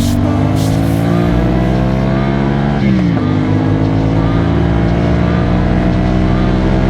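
CFMOTO 450SR-S parallel-twin engine pulling under acceleration, its pitch climbing steadily. About three seconds in the revs drop sharply on an upshift, and the engine then pulls up through the next gear.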